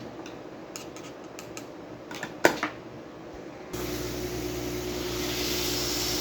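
Light clicks of tools on a circuit board, with one sharp snap about two and a half seconds in. Nearly four seconds in, a steady fan-like blowing with a low hum starts up: a hot air rework station heating the IC to lift it off the board.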